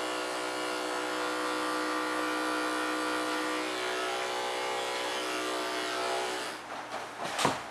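Corded electric pet clippers running with a steady buzz, then cutting out about six and a half seconds in. A sharp knock follows shortly before the end.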